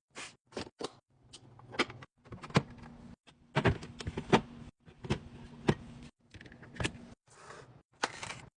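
Food containers and packaging being handled and set down while restocking a fridge: a quick series of sharp clicks and taps, with two short rustling stretches near the end.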